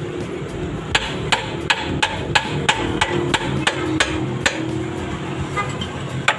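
Hammer blows ringing on metal, about three a second in a run of about a dozen, with one more near the end, over a steady low hum. The blows come during work on the car's front lower control arm and shock absorber.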